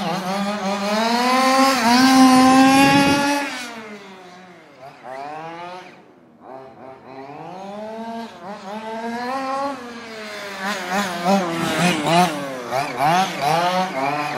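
Fifth-scale RC buggy's small two-stroke gas engine revving up and down as the car is driven, its carburetor richened back into tune after running lean. The revs climb to a peak a couple of seconds in, fall away sharply and run quieter for a few seconds, then rise and fall again and again near the end.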